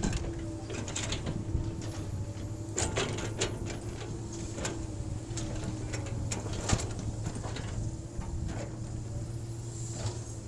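Hydraulic excavator's diesel engine running steadily, with irregular sharp clicks and clanks from the machine at work.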